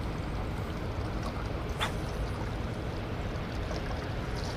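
Steady rush of water pouring through the dam's open floodgates, with one brief sharp sound a little under two seconds in.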